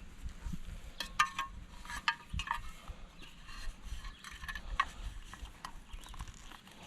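Pliers gripping and twisting a stuck threaded garden-hose fitting off a sprinkler: irregular metal clicks, scrapes and a few short ringing clinks.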